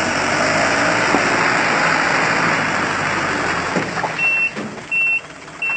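An off-road vehicle running hard with a loud, steady noisy rush for about four seconds. Near the end three short high electronic beeps sound, evenly spaced, like a vehicle's warning or reversing beeper.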